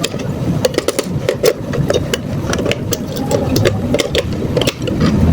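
Small electric motor of a toy car whirring, with frequent sharp plastic clicks and rattles.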